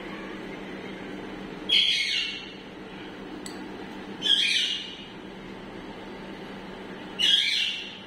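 Green parakeet giving three loud calls, about two and a half seconds apart, each well under a second long, over a steady low hum.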